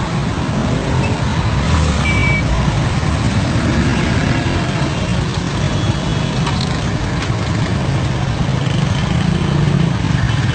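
Busy street traffic, mostly motorcycle engines running together in a jam, as a steady dense rumble.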